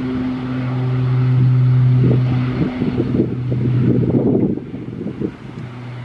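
The twin Garrett TPE331 turboprop engines of a Cal Fire S-2T Tracker air tanker at takeoff power, a steady propeller drone as it accelerates down the runway. Gusts of wind buffet the microphone in the middle.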